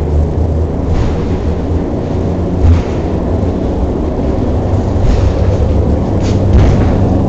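Steady low rumble of a funicular car running along its track, heard from inside the cabin, with a few short clunks and clicks about a second in, near three seconds, and around five to six and a half seconds in.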